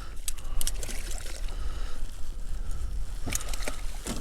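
Water lapping and splashing against a kayak hull, over a steady low wind rumble on the microphone, with a few sharp clicks and knocks about half a second in and again near the end.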